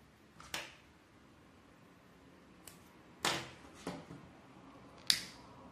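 Hands handling a string-art board and small tools on a tabletop: a handful of brief rustles and taps, the sharpest near the end.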